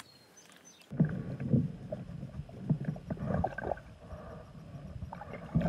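Muffled water sloshing and gurgling, heard underwater, as a carp is held in the water by hand and released, with irregular low knocks and a louder thump near the end. It starts about a second in.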